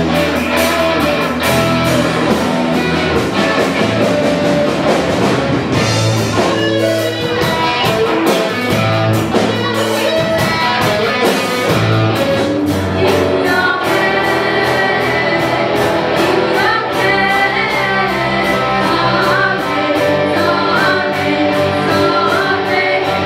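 Live rock band playing amplified electric guitars and a drum kit, with sung vocals.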